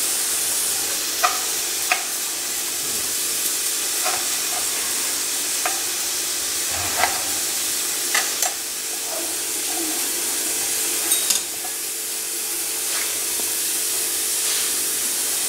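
Oil heating in an iron kadai over a gas burner: a steady hiss with scattered pops and crackles every second or so.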